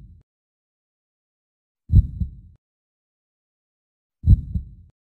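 Slow heartbeat sound effect: deep two-part thumps, a strong beat followed closely by a weaker one, heard twice about two and a quarter seconds apart, with silence between.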